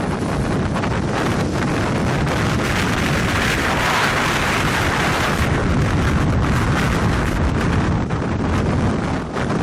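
Strong wind buffeting the microphone in a tornado's circulation, a dense, loud rushing noise that swells for a couple of seconds midway.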